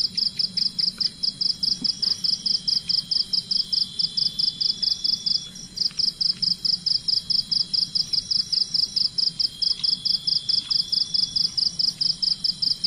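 Night insects chirping in a fast, even pulse of about five chirps a second, over a steady high-pitched drone from another insect. The pulsing breaks off briefly about five and a half seconds in.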